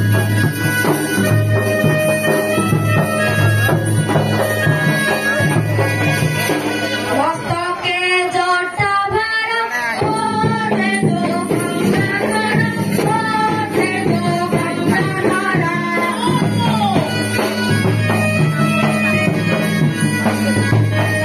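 Loud live folk music: a droning reed wind instrument over drums and jingling percussion. A wavering, gliding melody line stands out from about seven seconds in to about seventeen.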